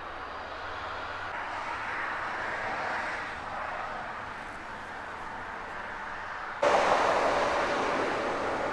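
Steady motor-traffic noise, swelling as a vehicle passes about two to three seconds in. Near the end the noise suddenly jumps louder and stays up.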